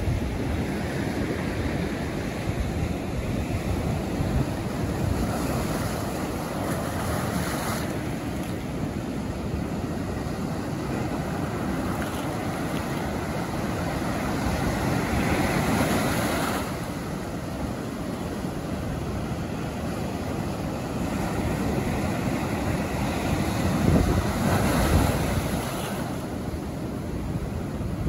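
Ocean surf breaking and washing up the beach: a continuous rush of water that swells louder about three times as waves come in.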